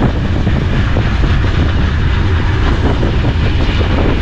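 Iron ore train wagon running: a loud, steady low rumble with frequent rattling metal knocks.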